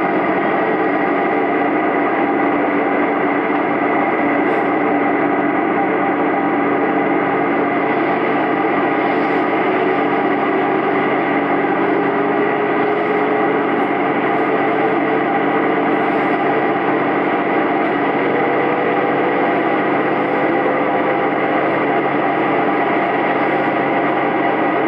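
Diesel railcar heard from inside the cabin, pulling away from a station: a steady engine drone whose pitch rises slowly as the train gathers speed.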